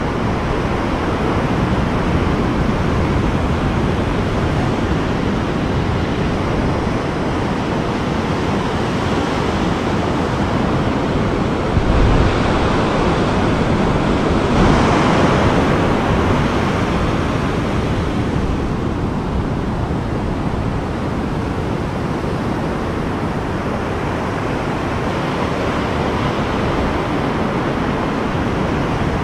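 Ocean surf breaking and washing up over a sandy beach, a steady rush of water with wind rumbling on the microphone; a wave comes in louder about halfway through.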